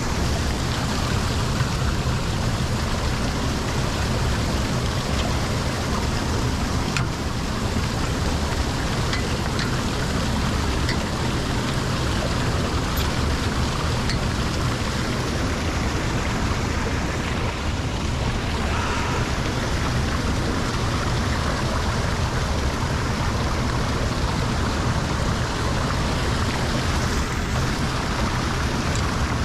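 Steady rush of lake water flowing into the drain, an even noisy wash with a low rumble that does not change.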